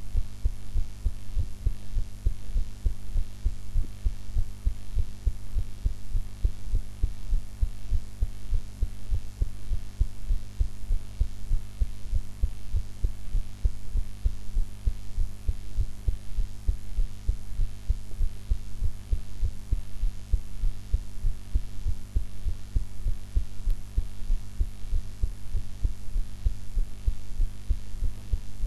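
A woman's heart beating, recorded close up: evenly spaced low thumps in a steady rhythm, over a faint steady hum.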